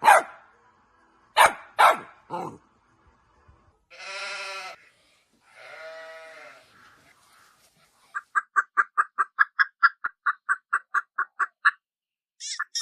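A series of animal calls: a sharp call, then three short ones, two longer pitched calls, and near the end a fast run of short pulses, about five a second.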